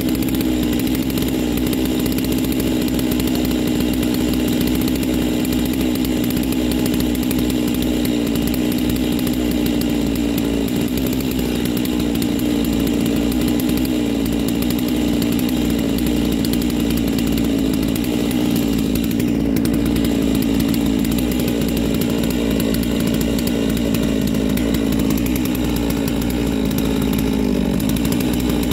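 Neo-Tec NS892 two-stroke chainsaw with a 36-inch bar, held at full throttle in one long unbroken cut through a large log, a steady engine drone that wavers only slightly in pitch under load.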